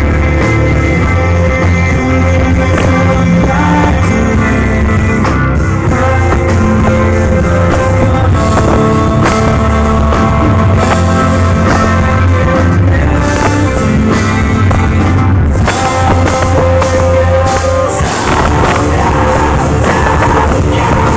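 Live rock band playing loud, with electric guitars and a drum kit under a lead vocal. The vocal is played back from a recording of the band's absent singer. The sound turns noisier and more distorted near the end.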